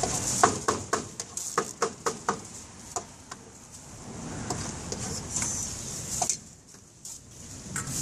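Meat cleaver chopping cooked pork head meat on a cutting board: about a dozen quick, sharp knocks in the first three seconds, then a quieter stretch with one more knock a little after six seconds.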